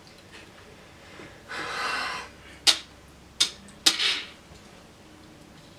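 Objects being handled on a table: a short rustling rush, then three sharp clicks a little under a second apart as the Bean Boozled jelly bean game is handled between turns.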